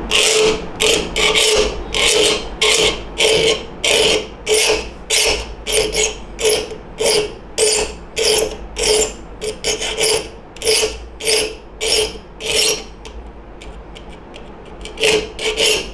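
A 4-inch (100 mm) saw file rasping across the teeth of a fine-toothed hand saw held in a vise, sharpening them. It goes in short, even strokes about two a second; the strokes stop for about two seconds near the end, then two more follow.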